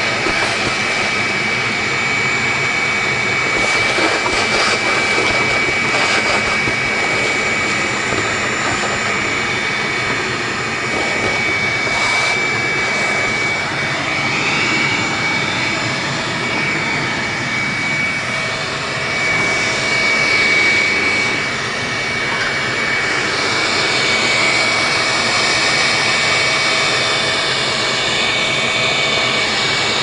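Vacuum motor running steadily with a high, even whine and a rush of air as it sucks leaves out of an old air-conditioning condenser. The air rush shifts in tone a few times in the second half.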